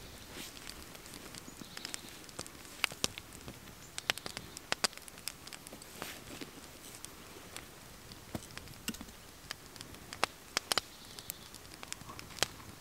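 Twig fire crackling in a small wood-burning stove (Warmbond BondStove Mini): irregular sharp pops and clicks over a faint hiss.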